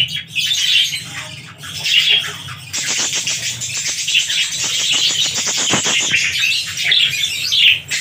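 Budgerigars in a breeding colony chattering and squawking, with a dense, scratchy run of calls from about three seconds in until near the end.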